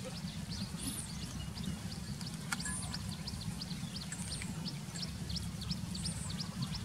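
Birds chirping outdoors, with quick short chirps and a higher arched call repeating every second or two, over a steady low rumble.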